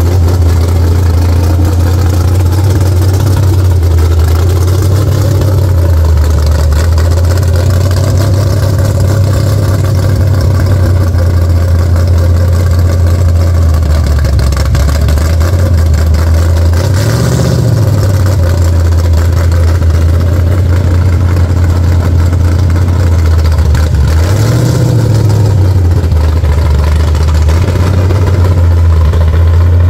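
A 1970 Ford Maverick drag car's engine running at a loud, steady idle as the car rolls slowly, with two short throttle blips, one a little past halfway and one later on.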